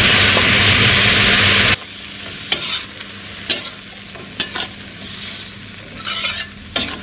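A loud, steady hiss with a low hum cuts off suddenly a couple of seconds in. Then long beans sizzle in an aluminium wok, and a metal ladle scrapes and clanks against the pan about once a second as the food is stir-fried.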